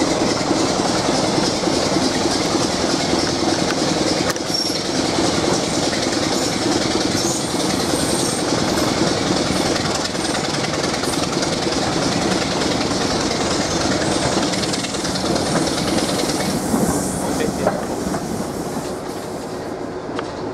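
Train running-noise heard from an open coach window: wheels rolling and clicking over the rail joints with a steady rush of wheel-on-rail noise, easing slightly near the end as the train slows to arrive.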